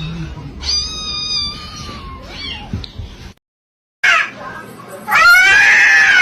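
Domestic cat meowing: a meow about a second in, then after a cut, a longer, louder meow near the end.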